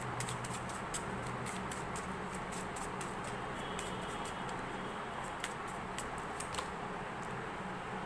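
A deck of cards being shuffled by hand: many small, irregular card clicks over a low steady hum.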